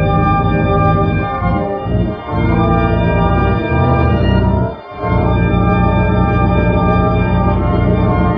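A loud, sustained organ-like drone of many pitches held together, dipping briefly a couple of times around two seconds in and once about five seconds in.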